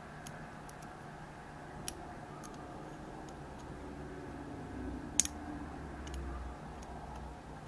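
Hook pick and tension wrench working the pin tumblers of a Schlage Everest cylinder: scattered light metallic clicks, with one sharper click about five seconds in.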